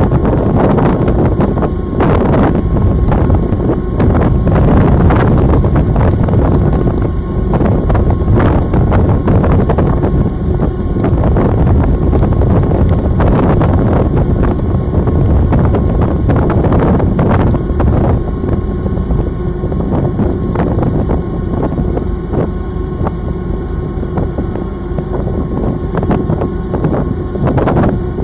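Wind buffeting the microphone over the steady running of the icebreaking sightseeing ship Aurora's engines, with a faint steady hum.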